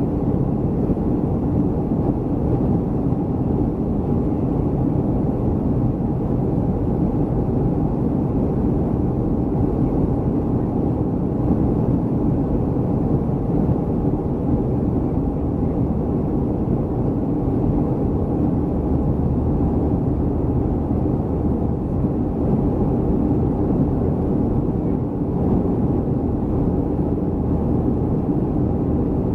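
Steady cabin noise of a Boeing 737-300 airliner: a constant deep rumble of its CFM56-3 turbofan engines and airflow, unchanging throughout.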